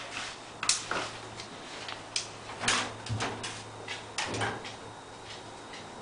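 A run of clunks and clicks from the 1961 English Electric 4602 tumble dryer being handled, over a low steady hum.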